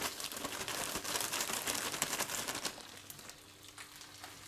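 Plastic zip-lock bag crinkling as crushed digestive biscuit crumbs are shaken out of it into a pan of melted butter; the rustling dies down about three seconds in.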